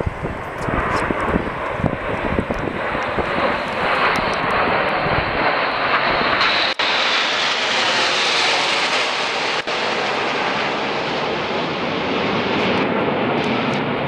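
Jet noise from the Red Arrows' nine-ship formation of BAE Hawk T1 trainers flying past. It builds over the first several seconds, is loudest around the middle, then holds steady. Two very brief dropouts interrupt it.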